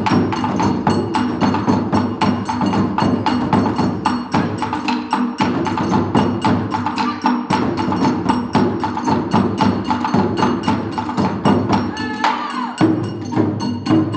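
Taiko drum ensemble playing: barrel drums struck with wooden sticks in a fast, unbroken stream of sharp strokes, with a steady pitched tone held beneath the drumming.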